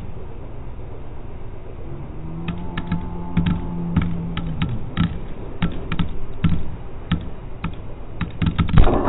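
Irregular sharp clicks and knocks, a few a second, from the forklift's fork and hook rig. A low steady hum runs from about two seconds in to about four and a half.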